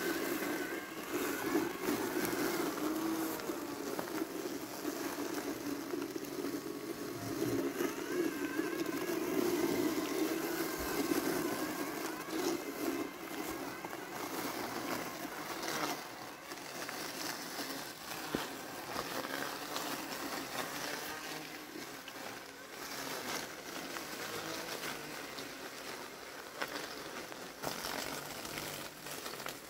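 Landxcape LX790 robotic lawn mower running its brushless blade motor through tall, wet weeds: a steady motor hum that fades a little under halfway through as the mower drives away.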